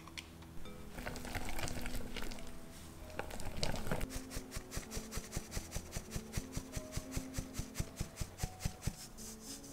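Fine-mesh sieve sifting cocoa powder and flour into a glass bowl: a few seconds of rustling, then the sieve tapped in a steady run of about five sharp taps a second.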